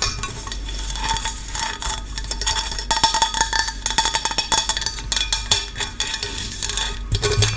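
Close-miked ASMR clicking and tapping, many quick light clicks in a row with faint metallic clinks.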